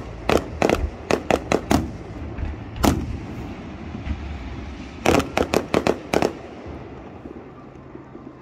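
Aerial fireworks shells bursting: a rapid volley of sharp bangs in the first two seconds, a single bang about three seconds in, and another quick volley between five and six seconds in, after which the bangs stop.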